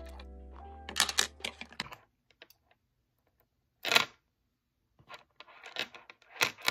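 Background music stops about two seconds in. Small scissors then snip the beading thread about four seconds in with one short sharp cut, and light clicks of glass and plastic beads being handled follow near the end.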